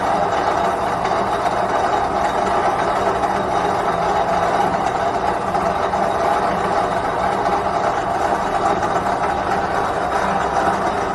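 Machinery running at a steady pace: a constant mechanical hum with no starts, stops or changes.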